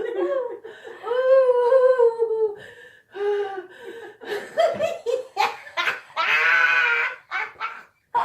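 A woman in a helpless laughing fit: high-pitched breathless laughter in uneven bursts, with one long drawn-out high squeal about six seconds in.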